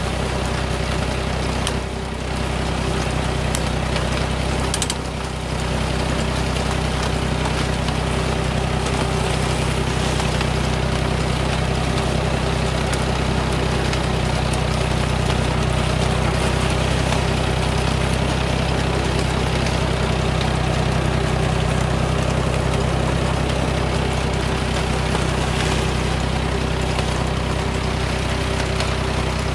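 Tractor engine running steadily as it pulls an old-time corn binder through standing corn, the binder working as it cuts the stalks.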